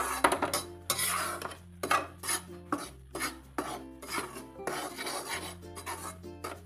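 Metal spatula scraping and stirring dry wheat flour and gram flour against the sides and bottom of a metal kadhai, a quick run of scraping strokes as the flour is dry-roasted on low flame.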